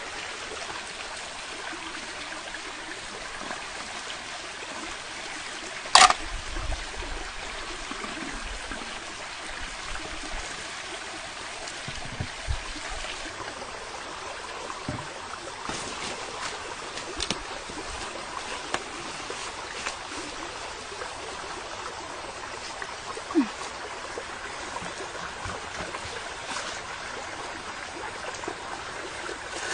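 Steady rushing water noise, with a sharp knock about six seconds in and a few lighter clicks later.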